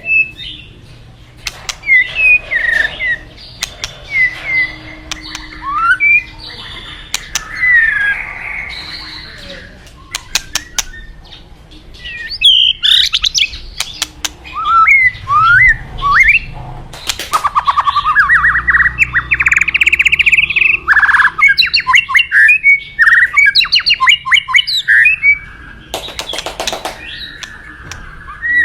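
White-rumped shama (murai batu) singing: varied sweeping whistles and chirps with sharp clicks, running into long, rapid trills about two-thirds of the way through, over a steady rush of flowing water.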